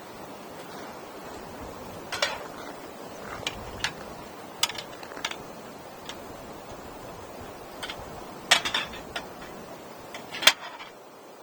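Wood fire burning with a steady hiss and irregular sharp crackles and pops, the loudest pops near the end.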